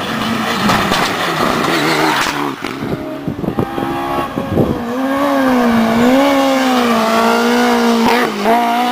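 Rally car's engine at high revs as it approaches and passes close by, the note climbing through the gears with brief dips, then holding a high, slightly wavering pitch as it goes past.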